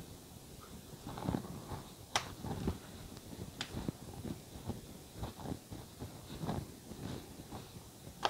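Hands patting and pressing a coil of paratha dough flat on a countertop: irregular soft pats and thuds, with two sharp clicks, about two seconds and three and a half seconds in.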